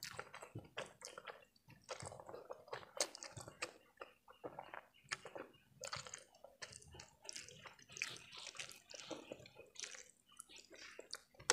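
Close-miked slurping and chewing of saucy Indomie instant noodles: an irregular run of quick wet smacks and squishes from the mouth.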